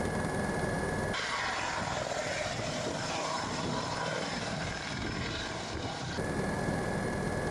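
Helicopter running on the ground with its rotors turning: a low rumble with a steady high turbine whine. About a second in the sound switches abruptly to a hiss without the rumble or whine, and the rumble and whine come back about six seconds in.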